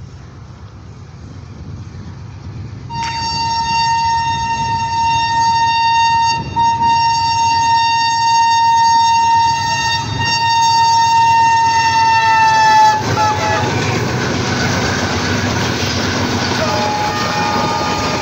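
AGE-30 diesel locomotive's horn sounding one long continuous blast of about ten seconds, its pitch dropping near the end as the locomotive passes. Then the rumble and clatter of the passenger coaches running past.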